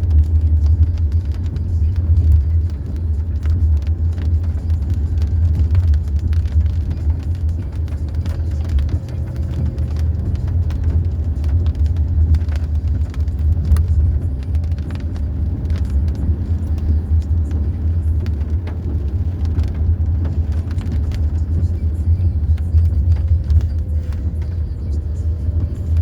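Car towing a caravan, heard from inside the cabin: a steady low engine and road rumble, with frequent small clicks and knocks throughout.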